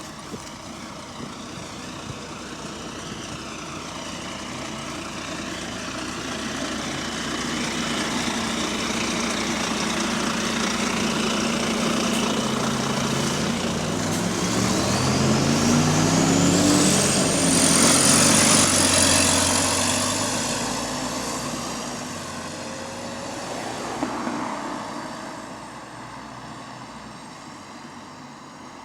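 A bus pulling away and passing close by. Its engine note rises in pitch as it accelerates, with a high whine climbing steeply, loudest about eighteen seconds in, then fading as it moves off.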